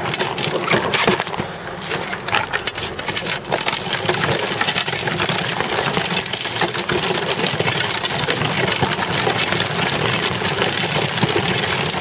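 Worn front tyre of a child's bicycle rolling over gritty asphalt, heard close up: a steady gritty crackle full of small clicks and knocks.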